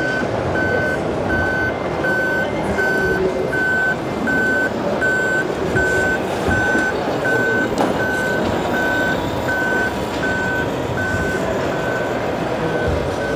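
Reversing beeper of an RC scale model Scania fire truck: a single-pitched beep repeating about 1.3 times a second, growing fainter near the end, over a steady noisy background.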